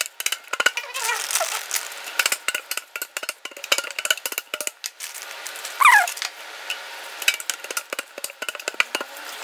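Rapid, irregular tapping and rattling on a greased metal cake tin as it is tilted and tapped to spread a dusting of flour over the inside. A short falling squeak comes about six seconds in.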